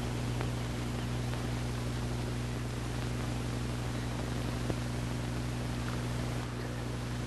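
Steady low electrical hum with constant hiss, the background noise of the recording, with a couple of faint clicks.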